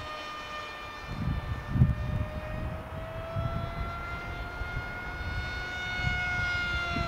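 ParkZone Stryker F-27Q's electric pusher motor and propeller whining in flight, the pitch sagging, climbing again and starting to drop near the end as the plane passes and turns. An uneven low rumble runs underneath.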